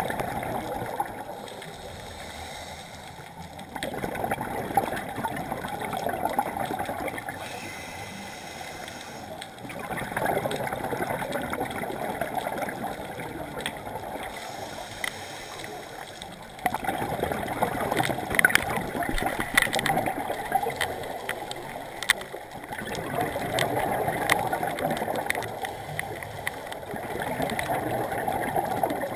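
Scuba diver's breathing through a regulator, heard underwater: long stretches of gurgling exhaust bubbles every five or six seconds, with quieter gaps between.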